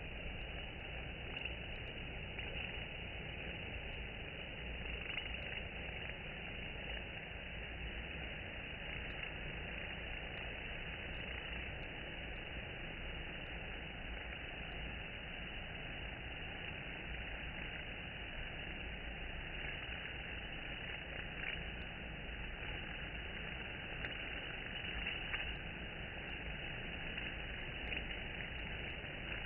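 Steady low hum and rush of honeybees around a hive entrance.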